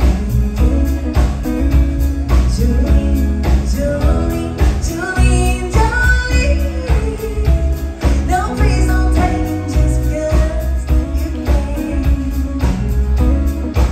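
Live country band playing: a woman's lead vocal over acoustic and electric guitars with a steady drum beat.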